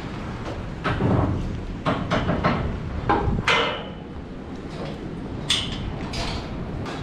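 Irregular knocks and a few ringing metallic clanks as cows walk over slatted concrete and past steel gates and rails in a cattle shed.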